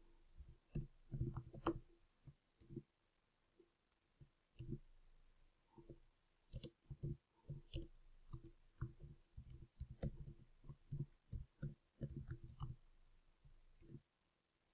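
Faint computer keyboard typing: irregular keystroke clicks in quick runs, with a pause of about two seconds early in the run.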